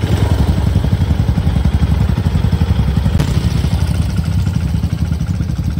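Off-road vehicle engine running steadily while driving, a loud, dense low rumble with fine rapid pulsing.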